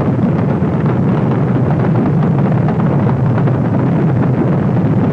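Saturn V rocket's five F-1 first-stage engines at liftoff: a loud, steady, crackling rumble, heaviest in the low end.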